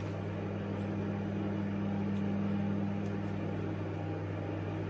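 A 900-watt microwave oven running mid-cycle while it heats a ready meal: a steady hum with a deep mains drone. A few faint ticks about three seconds in.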